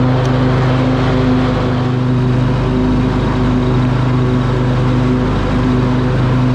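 Riding lawn mower running steadily while mowing, its engine holding one even pitch.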